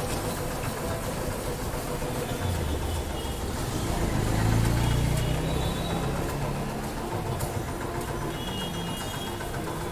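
Low vehicle engine rumble that swells about four to five seconds in and then eases off, like a vehicle passing.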